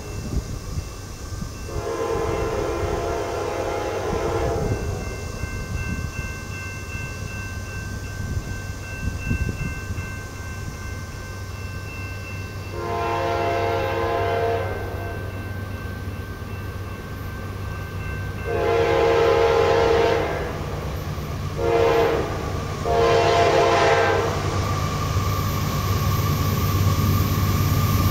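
Freight diesel locomotive's multi-chime air horn blowing a series of blasts as the train approaches: one long blast early on, then long, long, short, long, the standard signal for a grade crossing. Under the horn the locomotive's diesel engine drones, growing louder near the end as the train nears.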